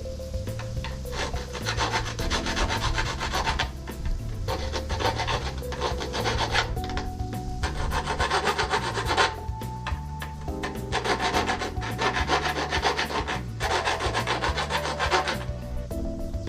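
Hand file rasping across the cut ends of steel bolts, in runs of quick back-and-forth strokes a couple of seconds long with short pauses between, deburring the ends after they were cut to length. Background music plays low underneath.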